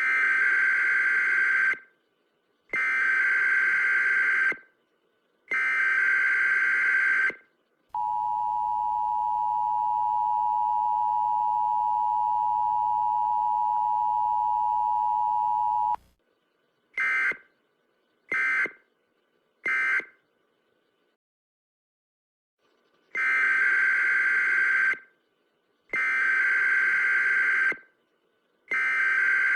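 US Emergency Alert System broadcast tones at normal speed. Three bursts of the digital header data warble, then the two-tone attention signal held steady for about eight seconds, then three short end-of-message bursts. After a few seconds' pause, three more header bursts start the sequence again.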